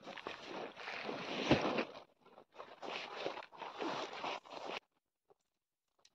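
Rustling and crinkling of a Coleman two-person tent's carry bag and packaging as it is handled and unpacked, with a dull thump about a second and a half in. The rustling stops abruptly a little before the end, leaving only a few faint ticks.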